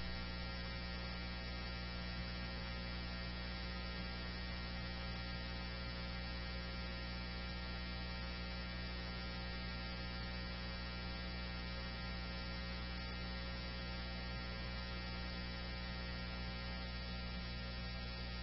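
Steady electrical mains hum with many overtones on a police scanner recording's audio line, unchanging throughout, between radio transmissions.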